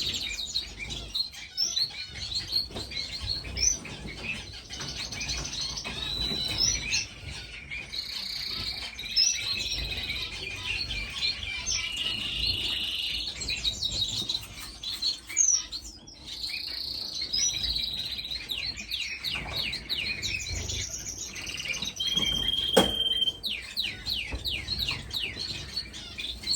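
A room of caged finches chirping and calling all at once, many short overlapping chirps and trills with no pause. A single sharp click sounds near the end.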